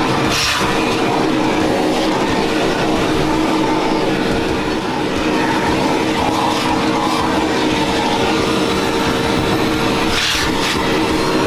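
Vacuum cleaner running steadily with a constant motor whine, sucking up small flies. There are brief rushes of air about half a second in and again near the end.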